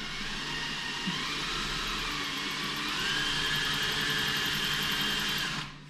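Electric drill running as it drills into the head of a stripped screw. The motor's whine rises in pitch about halfway through, then cuts off suddenly near the end.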